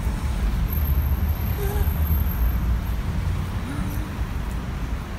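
Road traffic on a city street: a steady low rumble.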